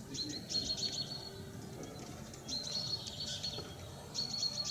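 A small songbird singing the same short, high phrase three times, about every two seconds. Each phrase is a held high note with quick chirps around it.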